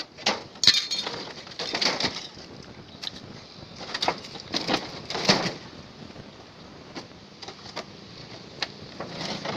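Irregular knocks and metal clinks from a refrigerator being broken apart for scrap, some with a short ring.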